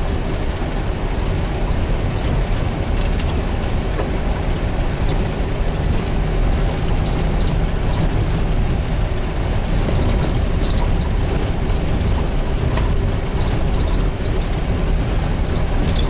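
Safari vehicle driving on a gravel dirt road: steady engine and tyre rumble with occasional clicks and rattles.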